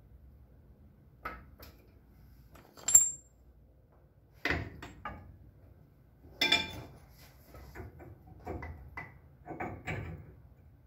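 Steel tools and suspension parts clinking and clanking during work on a Ford Model A pickup's rear leaf spring and shackle: a sharp ringing clink about three seconds in, then heavier clanks and a run of smaller knocks near the end.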